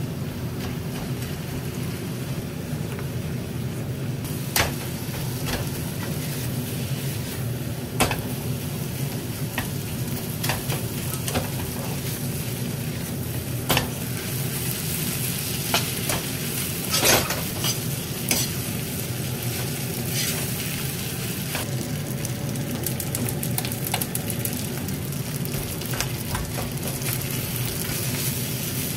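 Kimchi fried rice sizzling in a frying pan while a metal spoon stirs and scrapes it, with sharp clinks of the spoon against the pan every few seconds.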